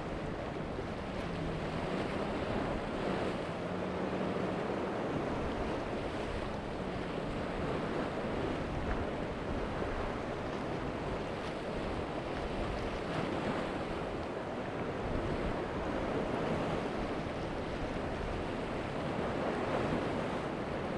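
Wind buffeting the microphone over shallow water lapping, a steady rushing noise. A low, wavering engine hum runs under it for the first several seconds, then fades out.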